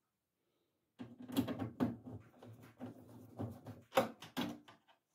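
A screwdriver clicking and scraping against the metal frame and plastic bracket of a tumble dryer's front panel: a run of sharp knocks and scrapes that starts about a second in, the loudest near four seconds in.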